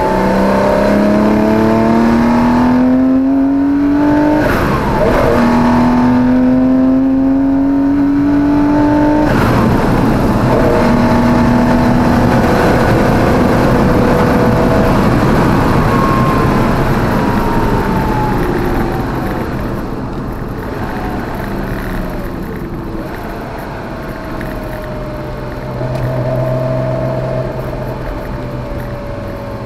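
Porsche 914/6's air-cooled flat-six heard from inside the cabin under hard acceleration. The pitch climbs through two gears, with a quick drop at each upshift. It then holds, falls steadily over several seconds as the engine is eased off, and settles lower near the end.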